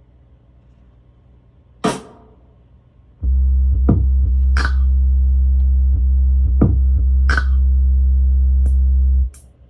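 Electronic hip-hop beat from a Native Instruments Maschine MK3 groovebox: a lone snare-like hit, then about three seconds in a long, deep sustained bass note enters under sharp drum hits, cutting off shortly before the end.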